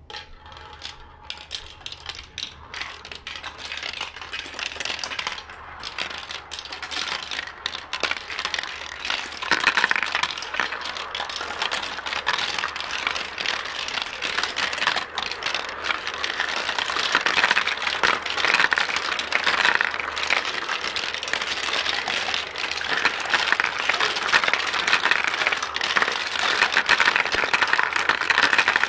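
Marbles rolling and clattering through a large transparent plastic marble run. The clicking starts sparse and builds into a dense, continuous clatter by about ten seconds in.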